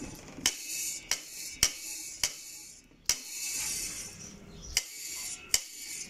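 Sharp metallic clicks from the switch plate on top of a Maytag washing machine motor as it is handled: four about half a second apart, then two more near the end.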